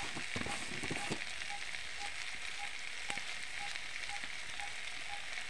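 Potato and tomato pieces sizzling steadily in hot oil in a kadhai, with a few light clicks in the first second and one more about three seconds in.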